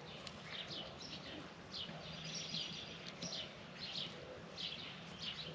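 Small birds chirping: short, high, downward-sliding chirps repeating about once or twice a second, faint over a low outdoor hiss.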